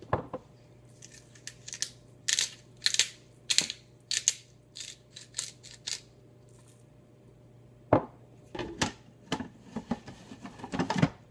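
Hand pepper mill being twisted over the food processor bowl: a string of short grinding crunches for several seconds. Then a knock and a run of plastic clunks and rattles as the food processor's lid with its feed tube is fitted onto the bowl.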